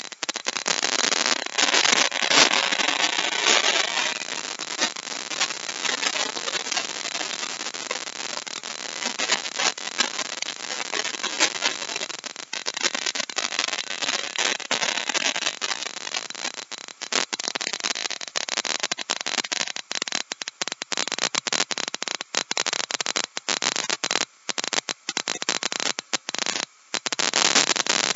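Corded power tool cutting a deep mortise in hardwood: a loud, rattling, crackling noise that stops and starts briefly several times near the end.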